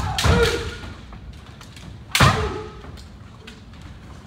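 Kendo sparring: drawn-out kiai shouts with sharp strikes and stamping footwork on the wooden floor, ringing in a large hall. Two loud bursts, one at the start and one about two seconds in, each with a shout that fades.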